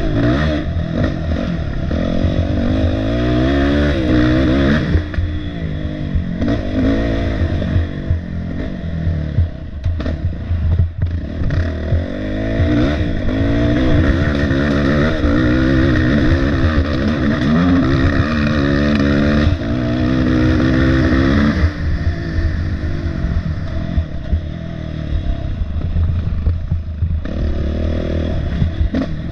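Racing quad (ATV) engine revving hard, its pitch climbing and dropping again and again as the rider works the throttle and shifts on a rough wooded trail, with a few brief drops in engine speed where it backs off.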